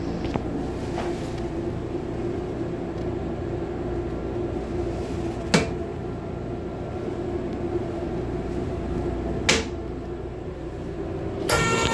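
Plastic toilet lid and seat of a Metro-North Comet IV train restroom clacking twice as they are lifted, over the steady rumble of the moving rail car. Near the end a loud rushing hiss starts: the toilet flushing.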